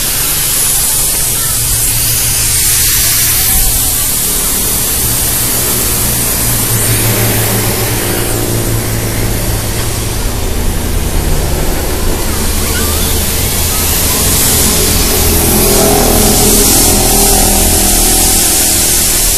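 An engine running steadily under a loud, even hiss, its note shifting somewhat higher in the second half.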